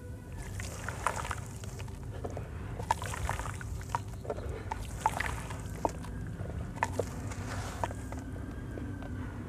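Dry sand-cement mix crumbled by hand into a tub of water: wet sloshing with scattered sharp ticks and small splashes, and soft patches of hiss as the powder soaks in.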